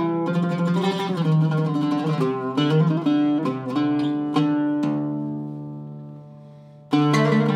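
Iraqi-style Zaryab oud with a cedar top and Aquila red strings, played with a plectrum: a run of quick plucked notes, then a note left to ring and fade for about two seconds before a sharp stroke starts the playing again near the end.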